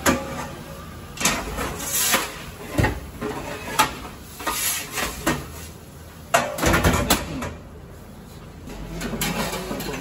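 Metal pizza peel knocking and scraping against a deck pizza oven while pizzas are slid in and out, with irregular kitchen clatter; the loudest knocks come about six and a half to seven seconds in.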